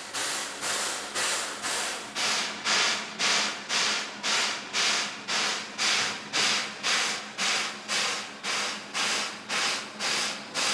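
JNR 8620-class steam locomotive 58654, standing in steam on a turntable, giving off rhythmic hissing puffs, about two a second, each swelling then cutting off, over a faint steady hum.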